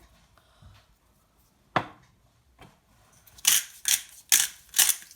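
A single knock, then a salt grinder being twisted by hand: rasping grinding strokes about twice a second, starting about three and a half seconds in.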